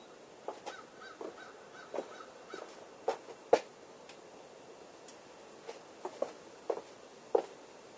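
Irregular metallic clicks and knocks from hands and tools working on a bicycle's chain guide and crank, the sharpest about three and a half and seven seconds in. About a second in comes a short run of quick high squeaks.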